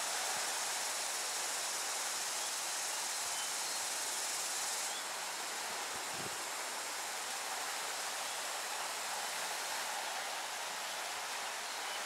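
Gentle sea waves washing over a rocky shore in a steady hiss, under a high, thin insect-like drone that eases off about five seconds in.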